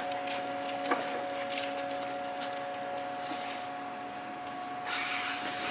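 Steady machine hum made of several held tones, with a few light clicks of small parts being handled and a short rustle about five seconds in.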